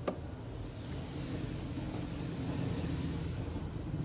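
Steady low background rumble, like distant traffic, with a single sharp click right at the start.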